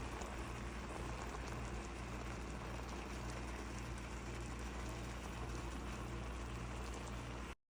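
Pot of pompano fish simmering in vinegar: a steady bubbling hiss over a low hum, cutting off suddenly near the end.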